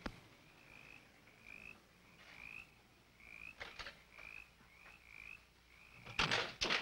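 Night chorus of short, slightly rising chirps repeating about one and a half times a second, with two loud noisy bursts near the end.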